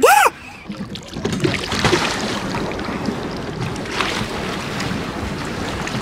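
Water churning and splashing around a pedal boat's paddle wheel as it backs up, a steady rush from about a second in.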